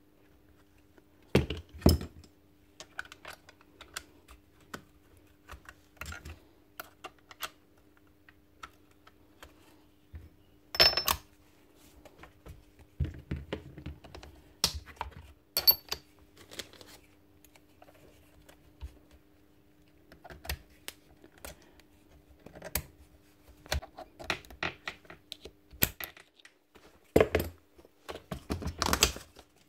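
Metal parts of a Bosch GSH 11 E demolition hammer's front end being handled and fitted together by hand: scattered clicks, taps and clinks, with a few louder knocks, some of which ring briefly. A faint steady hum runs underneath.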